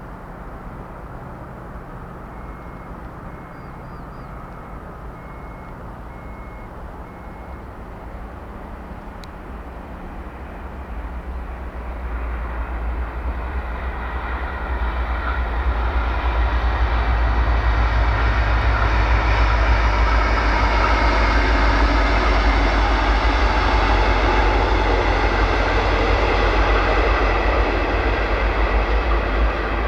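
A train approaching, growing steadily louder over about six seconds, then running past with a steady, loud rumble of wheels on rail and a deep drone underneath.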